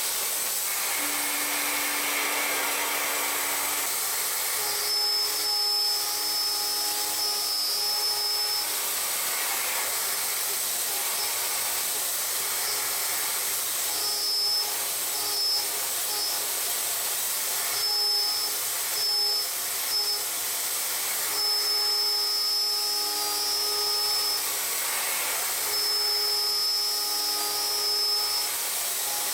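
Tongtai VP-8 vertical machining center running: a steady hiss under a high whine that comes and goes in stretches of one to three seconds, about six times, as the machine cuts and moves.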